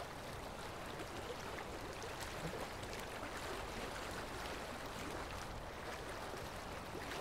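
Faint, steady seaside ambience: gentle surf from a calm sea washing on a sandy beach.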